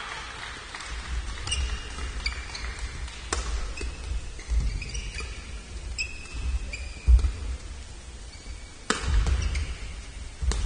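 Badminton court sounds: shoes squeaking and thudding on the court mat, and a few sharp cracks of rackets striking the shuttlecock, the loudest near the end as the point is played.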